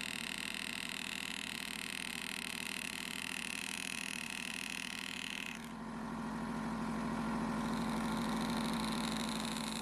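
Power-assisted engraving handpiece buzzing steadily as it drives a graver into the watch case for ribbon-cut background removal. A high whine cuts off sharply about five and a half seconds in, and a lower buzz then grows somewhat louder.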